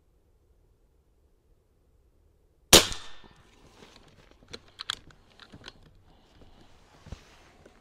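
A single shot from a Niksan Tacto-S .22 PCP air rifle a little under three seconds in, a sharp crack with a short ring. After it, a few light clicks as the rifle is handled.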